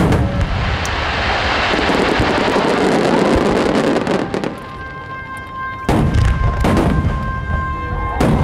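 Large aerial firework shells (ten-inch shakudama) bursting: a dense continuous wash of bursts for the first four seconds or so, then after a short lull, sharp booms about six, seven and eight seconds in.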